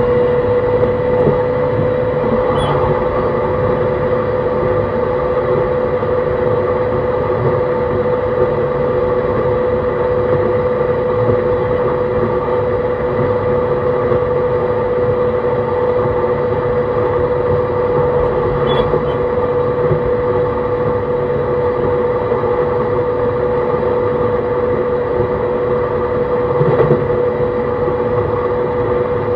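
E131 series 600 subseries electric multiple unit running at a steady speed, heard from inside the car: steady rolling noise with a constant mechanical hum, and a few faint clicks along the way.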